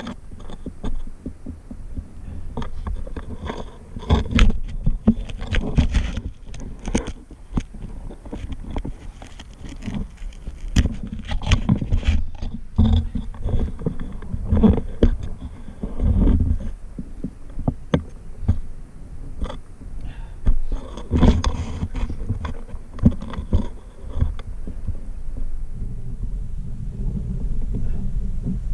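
Irregular scraping, shuffling and knocks of a person crawling over loose wet soil and rock at a narrow tunnel opening, with heavy bumping and rubbing of the camera held close against the ground.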